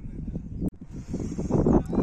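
Indistinct voices of people on an open field, growing louder in the second half, with a single sharp click about two-thirds of a second in.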